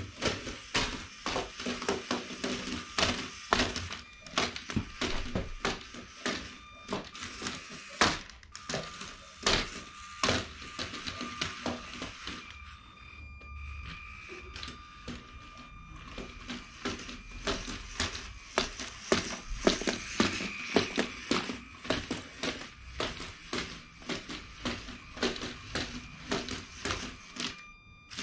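Motor-driven LEGO Mindstorms walker stepping across a wooden floor: plastic legs and feet clatter in rapid, irregular clicks and taps. A faint steady electric-motor whine runs underneath.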